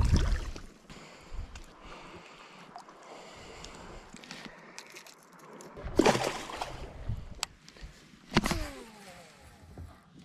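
Water splashing and sloshing at the side of a boat as a striped bass is held in the water and released by hand, with a sudden loud splash about six seconds in and another short loud sound about two seconds later.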